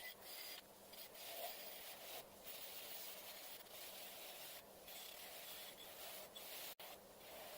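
Near silence: a faint, even hiss with brief dropouts and no distinct event.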